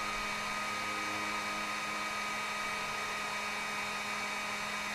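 Electric heat gun running steadily on a high setting, an even blowing hiss with a motor hum, melting solder-seal crimp connectors.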